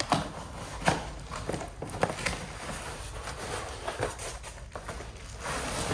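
Cardboard wall-clock box being handled and opened: a few sharp knocks and scrapes of the cardboard, with rustling of the clock's plastic wrap growing near the end.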